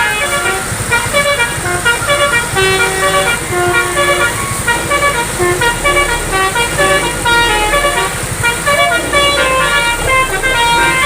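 Multi-tone 'telolet' bus air horn playing a quick melody of short notes that change pitch several times a second, with the bus's engine running underneath.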